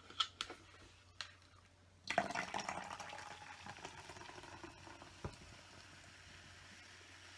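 A few light clicks, then a drink being poured from about two seconds in, the pouring fading away over several seconds, with one more click near the end.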